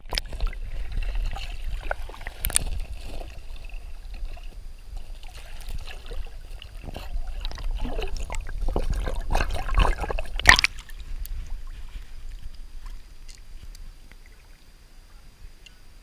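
Stream water heard through a camera held underwater: muffled rumbling, sloshing and bubbling crackle, with a few sharp knocks. It gets busier and louder around eight to ten and a half seconds in, as a trout stirs up bubbles beside the lens, then settles toward the end.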